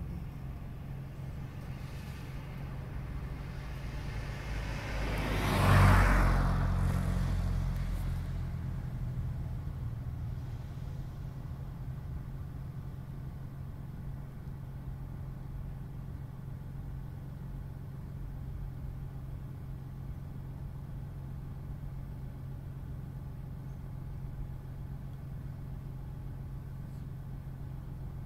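Steady low hum of an idling car engine. About six seconds in, a passing vehicle swells loudly and fades away over a few seconds.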